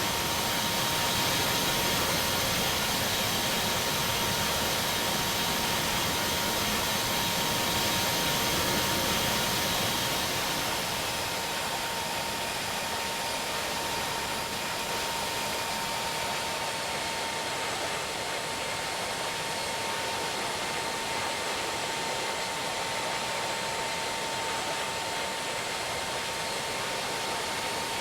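Airbus A320 airliner's jet engines and rushing air making a steady whine with a hiss. The sound eases off about ten seconds in.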